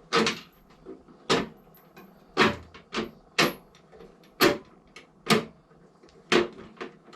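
A series of about eight short, sharp strokes of a hand tool, spaced irregularly about a second apart, as the saddlebag mounting is worked on.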